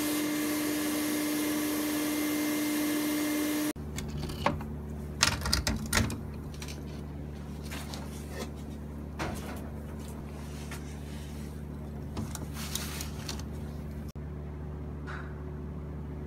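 Sandblaster blast gun spraying abrasive at a glass mug in a steady loud hiss with a steady tone, a touch-up pass to etch letter edges through a vinyl stencil; it stops abruptly about four seconds in. A steady low hum follows, with scattered knocks and clatter as the mug is handled on the cabinet's metal grate.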